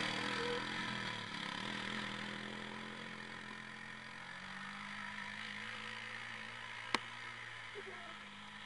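Honda FourTrax 300 ATV's single-cylinder four-stroke engine running as the quad pulls away, fading steadily as it gets farther off. A single sharp click about seven seconds in.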